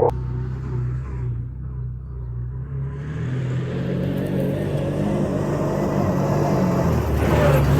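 The V-twin engine of a 2012 Can-Am Commander 1000 side-by-side running under way. It eases off, then picks up again from about three seconds in. A short rush of noise comes near the end.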